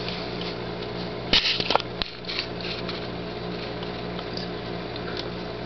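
Steady low hum of a small motor or fan, with a short cluster of sharp clicks and knocks about a second and a half in.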